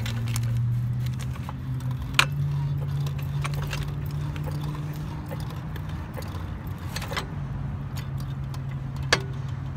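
Steady low hum of a running engine that steps up in pitch about two seconds in and settles back later, with a few sharp metallic clinks from tools and a floor jack against the suspension.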